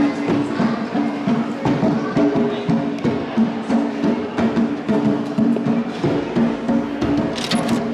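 Music with steady pitched notes and fast tapping percussion, with a short burst of hiss near the end.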